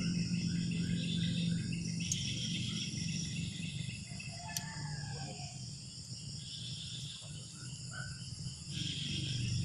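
Crickets and other insects trilling steadily in a shrill chorus, over a low steady hum, with a few short gliding calls about halfway through.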